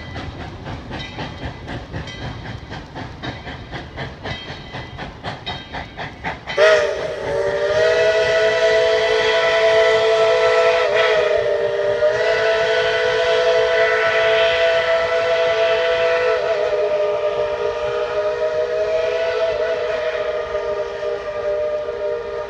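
Tweetsie Railroad No. 12, a 4-6-0 steam locomotive, running with a quick, even rhythmic beat; about six and a half seconds in its chime steam whistle opens up loud and is held as one long chord of several notes, wavering slightly now and then.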